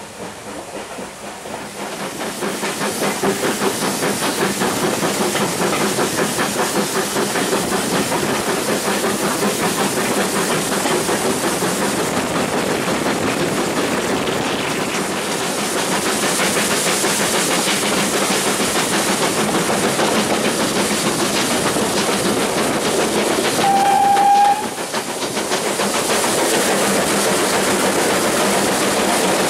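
Steam train under way, with a fast, even rhythm of running noise that grows louder over the first few seconds as it gets going. A short steam whistle toot sounds about three-quarters of the way through.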